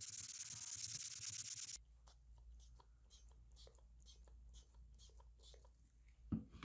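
A steady high hiss, like a spray or power sander, cuts off abruptly about two seconds in. Faint light scratching and small taps follow, with a single louder knock near the end.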